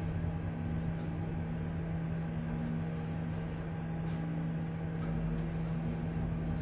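Mitsubishi passenger elevator car travelling upward, heard from inside the car: a steady low hum over running noise, with a couple of faint ticks a little past halfway.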